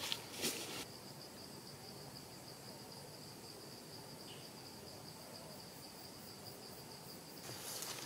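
An insect trilling steadily: a thin, high, finely pulsing buzz that starts about a second in and stops near the end, over faint outdoor hiss.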